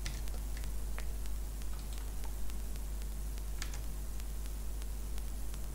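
Steady low electrical hum and hiss, with a few faint, scattered computer keyboard and mouse clicks as code is typed and a document compiled.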